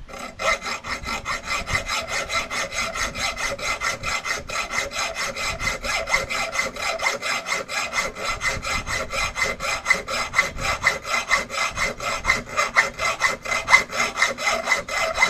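Hacksaw with a metal-cutting blade sawing through a metal screw in steady back-and-forth strokes, about four a second.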